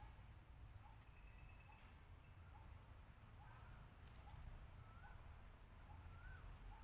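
Faint bird calls: a short chirp repeated about once a second, joined in the second half by a few rising-and-falling whistles, over a low rumble.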